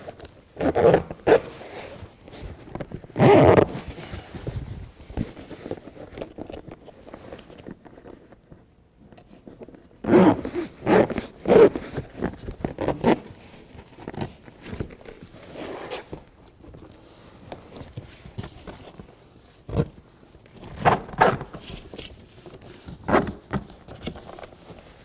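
Large zipper on a BedRug bed liner being drawn along the seam that joins the carpet-faced floor and sidewall pieces, in irregular pulls and scrapes, mixed with the rustle and shuffle of the liner panels being handled. A quieter stretch comes about seven seconds in.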